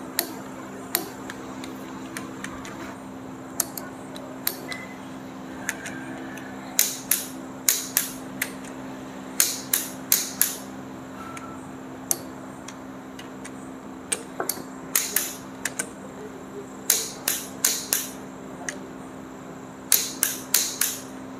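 Torque wrench set to 80 Nm tightening connecting-rod cap bolts: sharp clicks in short runs of two to four, repeating every second or two.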